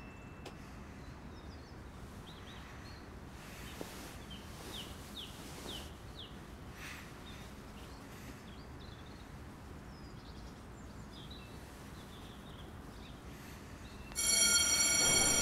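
Quiet room ambience with faint, scattered bird chirps. Near the end a much louder, steady tone with many overtones cuts in abruptly.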